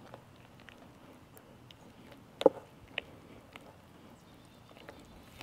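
A stirring utensil clicking and scraping against a glass beaker as sulfuric acid is mixed into powdered sugar: a few light, irregular clicks, the loudest about two and a half seconds in.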